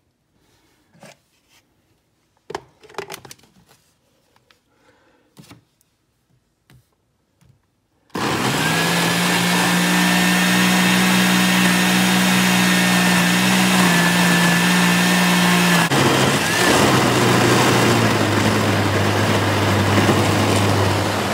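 Countertop blender switched on about eight seconds in, running at a steady high speed and pulping chopped celery with a little water; its motor note drops lower about halfway through the run. A few light knocks and clicks come before it starts.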